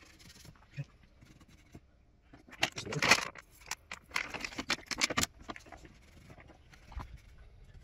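Hand cleaning of an engine bay: a rag rubbing over engine parts and a plastic water bottle crackling as water is poured from it, with two louder scraping bursts around the middle.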